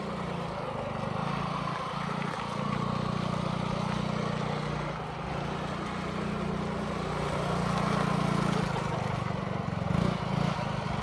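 Small motor scooter engine running steadily as the scooter with its passenger sidecar rides slowly over gravel, growing louder in the second half.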